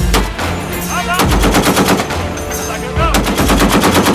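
S&T Motiv 12.7 mm heavy machine gun firing two bursts, about ten shots a second. The first burst starts about a second in, the second about three seconds in, each lasting roughly a second.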